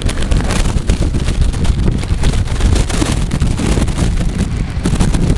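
Wind buffeting the microphone in a loud, crackling rumble, over an off-road 4x4's engine as it crawls over sandy mounds.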